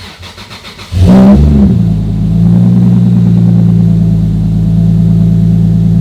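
Toyota 2JZ-GTE twin-turbo straight-six cranking on the starter for about a second, catching and flaring up in revs, then settling into a steady idle, heard from inside the cabin. This is a cold start on fresh spark plugs and coil packs, and the idle holds steady with no misfire yet.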